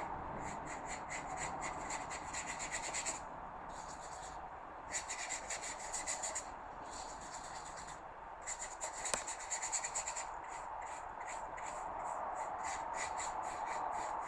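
Flat paintbrush scrubbing thinned acrylic paint across paper: a dry rubbing in quick back-and-forth strokes, about five a second, in several runs with short pauses between them.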